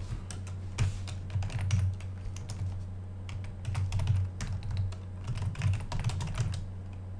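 Typing on a computer keyboard: quick, irregular keystrokes over a steady low hum.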